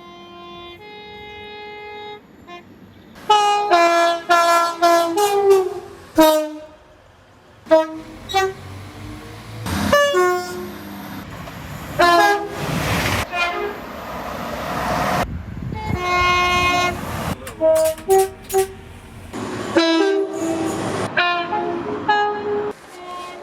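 Multi-note train air horns sounding chords in repeated short and long blasts, from several horns cut one after another. About halfway through, the rushing noise of a passing train rises and fades.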